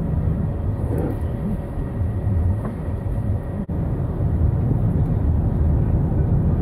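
Steady low rumble of a car driving, heard from inside the cabin: road and engine noise. There is a momentary dropout a little past the middle.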